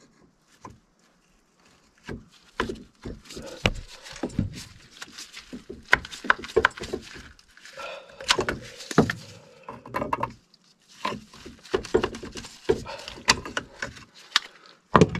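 Irregular knocks, clicks and rustling of a hand tool being worked on a water pipe and its brass fitting, starting about two seconds in.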